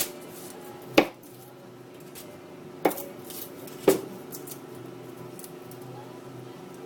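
Garlic cloves tossed onto a baking tray: three sharp taps, about a second in, just before three seconds and a second after that, over a steady low hum.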